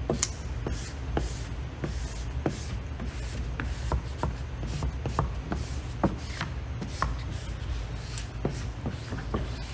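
Plastic squeegee rubbing paper-masked vinyl film down onto window glass in quick repeated scraping strokes, about two to three a second, over a steady low hum.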